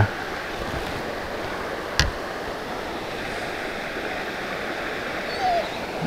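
Steady rushing of flowing stream water, with one sharp click about two seconds in.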